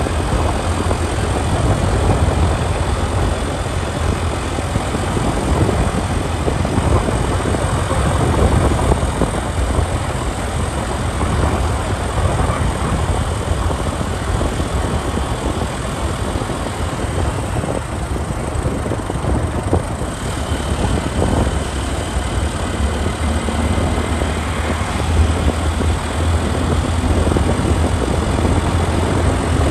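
Ride on a motorcycle taxi: the motorbike's engine running under a steady, loud rush of road and wind noise, with a strong low rumble and no breaks.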